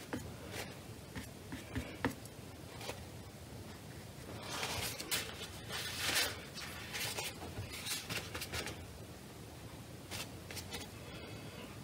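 Quiet scratching and rustling of a flat watercolour brush on paper and a tissue being worked over the palette, a run of short strokes that is busiest in the middle, with a few small clicks.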